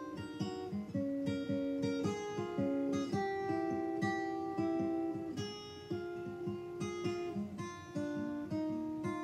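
Background music: an acoustic guitar picking a steady run of single plucked notes, about three or four a second, each ringing and fading.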